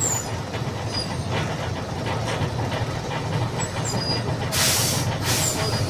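Mercedes-Benz OF 1722M bus engine running steadily. Near the end come two short bursts of compressed-air hiss from the bus's pneumatics, with a few faint high squeaks.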